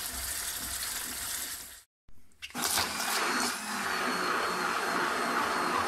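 Onion and white wine sizzling in a frying pan for the first couple of seconds. Then, after a brief break, an electric immersion (hand) blender starts and runs steadily, puréeing the cooked onion sauce in a plastic jug.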